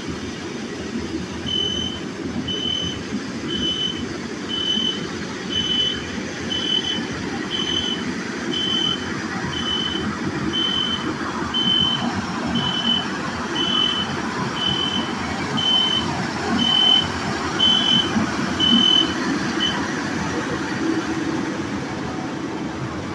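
Backup alarm of a reversing construction vehicle beeping about once a second over a steady engine rumble; the beeping stops a few seconds before the end while the engine keeps running.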